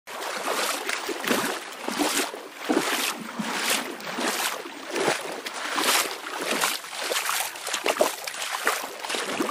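Water sound effect: water sloshing and lapping in irregular swells, about one or two a second.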